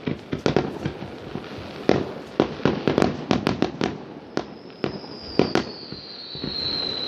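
Fireworks and firecrackers going off in an irregular string of sharp bangs. From about four seconds in, a long high whistle runs on, falling slightly in pitch.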